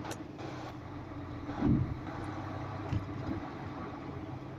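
Lorry's diesel engine running at low speed as it creeps forward, heard from inside the cab. A thump comes about one and a half seconds in, with a smaller one near three seconds.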